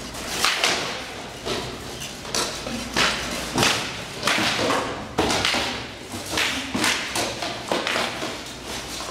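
Rattan swords striking shields and armour in SCA heavy-armoured sparring: an irregular series of sharp cracks and thuds, about two blows a second, ringing briefly in a large hall.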